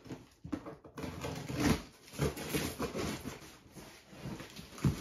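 Shipping box and its packaging being handled and opened: irregular rustling and scraping with a few soft knocks.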